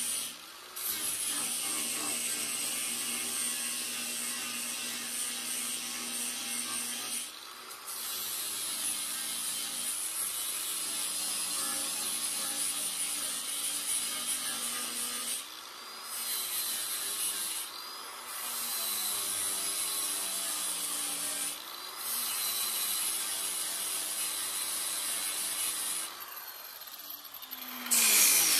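Angle grinder's disc grinding steel weld bead around a nut welded into the sheet-metal fender arch, cleaning it up before the threads are re-tapped. It runs in several long passes, briefly easing off between them, with a high whine over the grinding and a short louder burst near the end.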